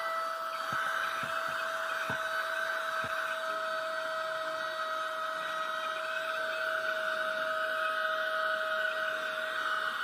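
Baseus A2 handheld mini car vacuum cleaner running while vacuuming a carpeted car foot mat. It gives a steady high-pitched motor whine over a rush of air, with a few light ticks in the first few seconds.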